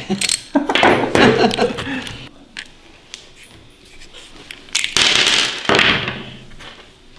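A few clicks from a 3/8 socket ratchet loosening the carburetor mounting nuts. Then handling clatter and rustling about a second in and again, louder, about five seconds in, with a quiet gap between.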